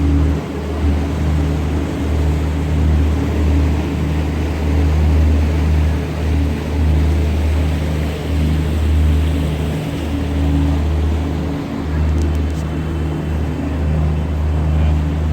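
Tour boat's engine running, a steady low hum under an even rushing noise.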